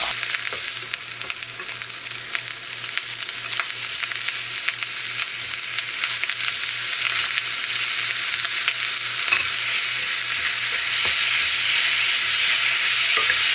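Pork and sour kimchi sizzling in a frying pan, with scattered clicks and scrapes as the kimchi is cut with scissors in the pan and then stirred with a wooden spatula. The sizzle grows louder about ten seconds in.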